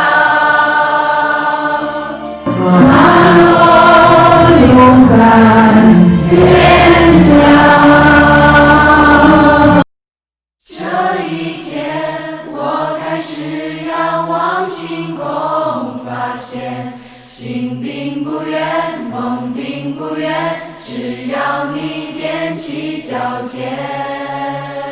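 Background music with a choir singing, loud for the first ten seconds. It cuts out suddenly for under a second, then resumes as a quieter melodic passage.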